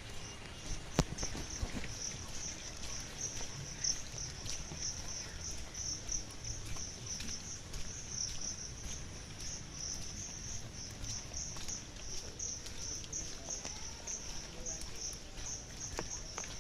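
Insects chirping in a steady high pulsing trill, about three pulses a second, with a few sharp knocks.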